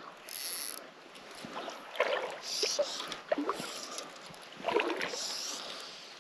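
Fly casting at the water's edge: several short swishes and light splashes a second or two apart as the fly line is worked through the air and lands on the water, with a few small knocks.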